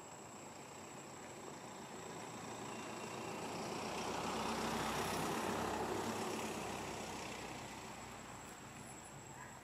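A vehicle passing by: engine and road noise that grows steadily, peaks about halfway through, then fades away.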